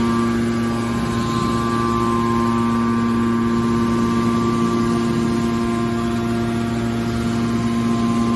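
Metal baler machine's hydraulic power unit, electric motor and pump, running with a steady hum made of several constant tones.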